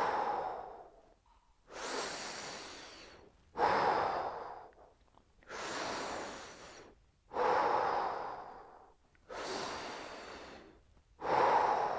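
A man breathing deeply and audibly, one long breath about every two seconds, while holding a standing side stretch.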